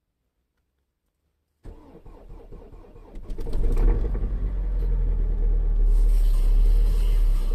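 Renault Grand Scenic 3's 1.9 dCi diesel engine being started from cold in about −19 °C frost, heard from inside the cabin: the starter cranks for about a second and a half, then the engine catches and settles into a steady idle. It starts easily for such a temperature, running on arctic-grade diesel.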